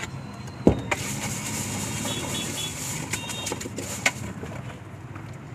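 Puffed rice and spices being stirred in an aluminium tin: a dry rustling, with a few sharp metal clinks against the tin about a second in and again near four seconds. A steady traffic hum runs underneath.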